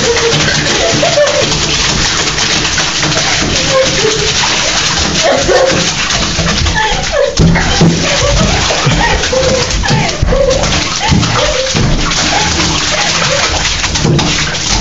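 A bluetick/walker coonhound cross whining in short, repeated pitched cries in a bathtub, over a steady rush of water in the tub.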